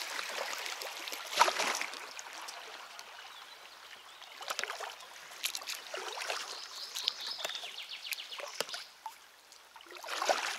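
Kayak paddle strokes dipping and splashing in the water, with dripping in between; the loudest splash comes about one and a half seconds in.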